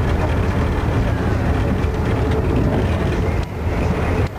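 Amtrak Northeast Regional passenger coach heard from inside while running: a steady, loud rumble of wheels on rail with a rushing noise above it. The level dips briefly twice near the end.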